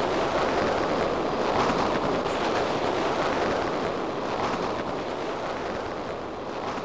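Sandstorm wind blowing hard over the camera's microphone: a steady, loud rush of wind noise that eases slightly toward the end.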